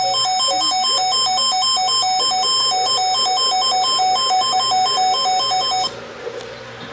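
Weather radio receiver's electronic alert alarm sounding for an incoming severe thunderstorm warning: a loud two-pitch warbling beep, alternating rapidly between two tones, that cuts off suddenly about six seconds in.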